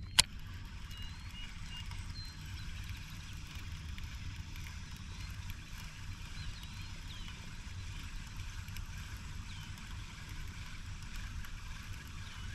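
Baitcasting reel being cranked in a steady retrieve, a faint even whirring under low wind rumble on the microphone, with one sharp click just after the start.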